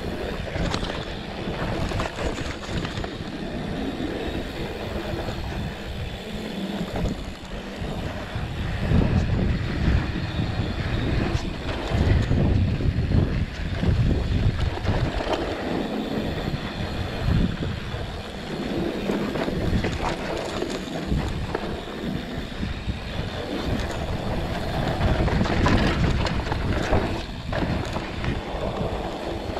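Mountain bike riding down a dry dirt singletrack: wind rushing over the camera microphone and tyres rolling on dirt, with frequent knocks and rattles as the bike goes over bumps. It swells louder in two stretches.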